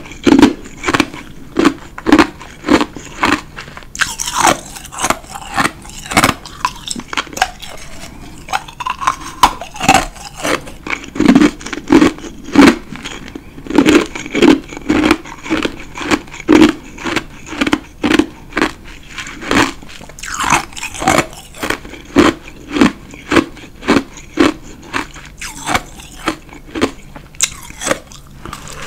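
Close-up chewing of a mouthful of powdery ice: crisp crunches in a steady rhythm, about two a second. Near the end comes a fresh bite into a cream-topped ice ball.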